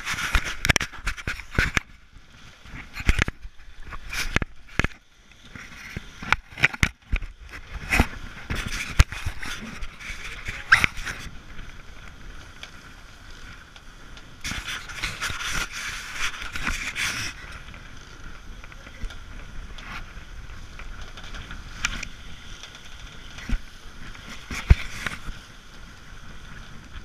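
Irregular sharp knocks and scrapes from the action camera being handled and bumped for the first ten seconds or so, then a steady rush of wind and water over a sailing catamaran, louder for a couple of seconds in the middle, with a few scattered clicks.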